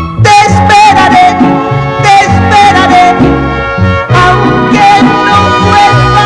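Mariachi band playing an instrumental interlude of a ranchera: trumpets carry the melody over a rhythm section with a bass line, with a brief pause about four seconds in before the next phrase.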